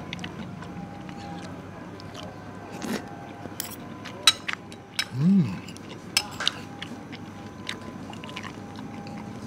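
Eating noises: chewing and a metal spoon and fork clinking and scraping against a ceramic plate of rice, with several sharp clinks. A brief hum of a voice about five seconds in.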